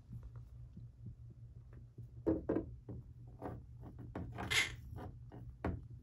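Quaker parrot handling wooden sticks on carpet against a door: a run of light taps and knocks starting about two seconds in, with one short scraping rustle about halfway through, over a low steady hum.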